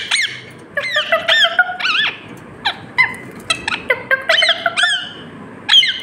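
Rose-ringed parakeet calling in several bursts of quick, high, squeaky notes and whistles, some held briefly and some rising and falling in pitch.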